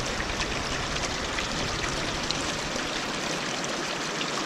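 Mountain stream rushing steadily over rocks, an even water noise with small splashes flecked through it.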